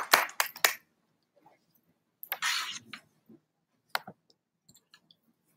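The last few hand claps of applause, dying out within the first second. Then near quiet, broken by a brief rustle and a few scattered clicks.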